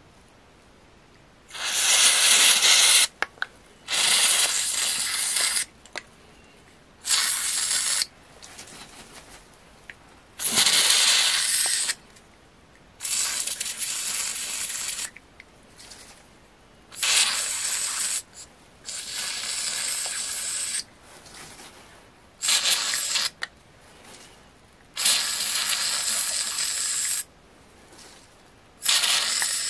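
Aerosol spray can with a straw nozzle giving about ten hissing bursts of one to two seconds each, with short pauses between. It is spraying liquid into the valve openings of an air pump's plastic valve plate.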